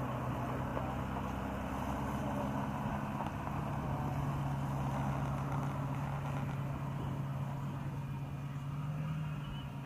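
A vehicle engine idling steadily, a constant low hum.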